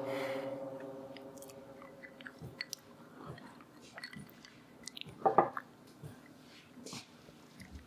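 A man quietly sipping a drink from a glass: small mouth sounds, swallows and light clicks of the glass, with one short, louder clink a little past halfway. A held music chord fades out at the start.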